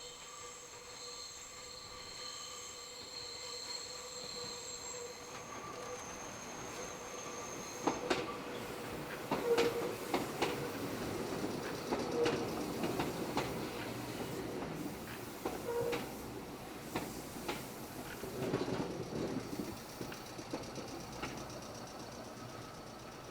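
Train wheels squealing on a curve: several steady, high, ringing tones hold for about the first eight seconds. Then sharp rail-joint clacks and running rumble take over, with short squeals breaking out again now and then.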